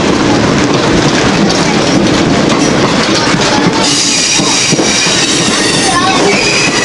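Open-air passenger car, a converted flatcar, rolling over old jointed rail: a steady rumbling ride noise. About four seconds in, a high steady wheel squeal sets in and holds.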